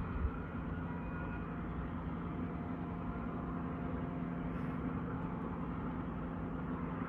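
Diesel rail vehicle's engine running with a steady low hum, and a brief low thump about a quarter second in.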